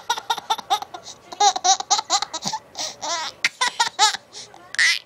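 A young child laughing in short runs of high-pitched, bubbling laughter, several bouts in a row with brief pauses between them.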